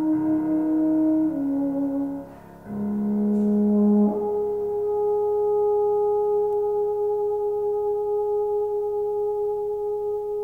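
Euphonium playing a slow lyrical melody in held notes. It changes note a couple of times, takes a short breath about two seconds in, then holds one long steady note from about four seconds in.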